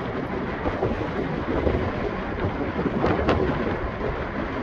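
Wind buffeting the microphone: an uneven, rumbling hiss.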